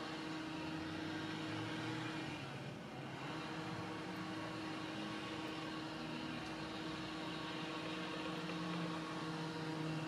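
A steady low motor hum, breaking off briefly about two and a half seconds in and then running on.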